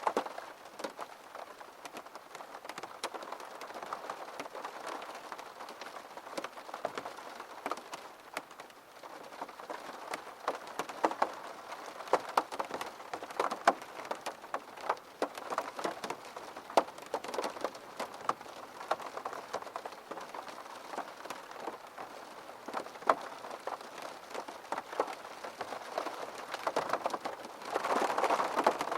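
Steady rain falling, with many separate drops tapping close by over the general patter; it swells louder for the last second or so.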